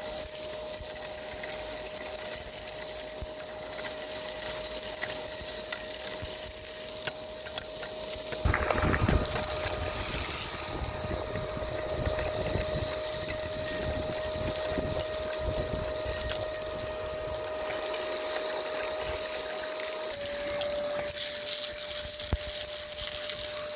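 Miele Complete C2 Tango EcoLine canister vacuum running with a steady motor whine and rushing air while sucking up street grit and debris, with crunching and rattling. A spell of low rumbling and clatter comes about a third of the way in, and the whine drops slightly in pitch near the end.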